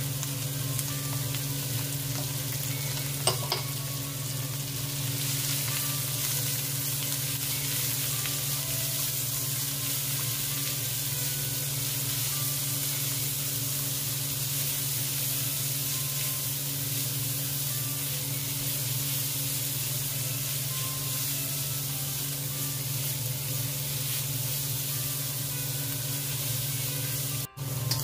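Chopped onion and minced aromatics sizzling in oil in a hot wok as a spatula stirs them, over a steady low hum. There is one sharp tap about three seconds in.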